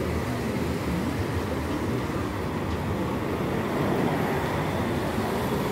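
Steady rumble of road traffic, with no single event standing out.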